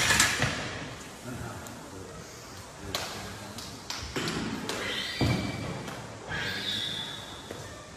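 Gym sounds: indistinct voices and a few scattered knocks and thuds, the loudest right at the start, with two brief high-pitched tones about halfway through and near the end.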